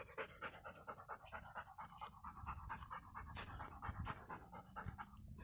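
A dog panting fast and steadily while it walks, close to the microphone.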